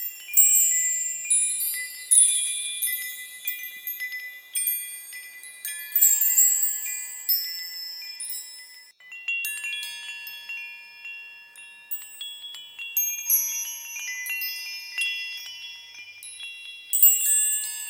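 Small high-pitched bells chiming in irregular, overlapping clusters, each strike ringing on and fading. The brightest clusters come just after the start, around six seconds in, and near the end.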